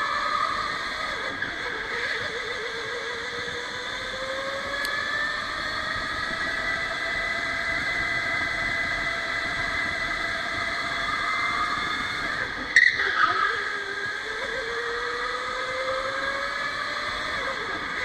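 Electric go-kart motor whining steadily from onboard, its pitch rising and falling slowly with speed, over tyre and road noise. About two-thirds of the way through comes a sharp knock with a brief rattle.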